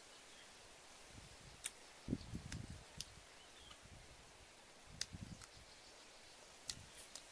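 Faint eating sounds of grilled chicken being eaten by hand: soft chewing in short spells and lip smacks, with scattered sharp clicks.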